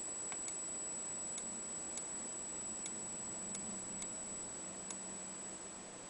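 Faint ticking, about four ticks every three seconds in an uneven tick-tock beat, over a steady high whine and low room hiss.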